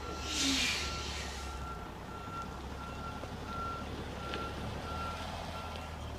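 A truck's back-up alarm beeping steadily, about three beeps every two seconds, over the low running of its engine as it reverses. A short hiss comes in the first second.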